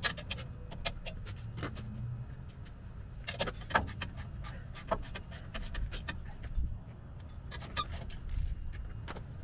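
Irregular metallic clinks and knocks, the loudest a little before four seconds in, from tools or metal parts being handled, over a steady low hum.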